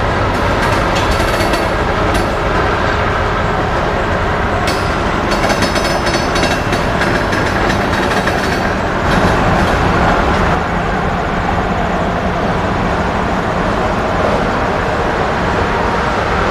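Slow freight train rolling past: a CSX autorack car's steel wheels rumbling on the rails, with a quick run of clicks over rail joints midway through.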